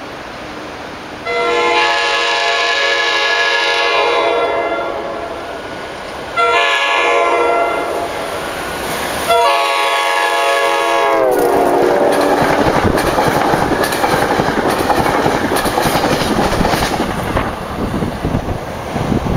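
SEPTA electric locomotive's multi-tone air horn sounding three blasts as the train approaches: a long one about a second in, a shorter one, and a third that drops in pitch as the locomotive passes close by. Then come the rush and clatter of the coaches going by at speed.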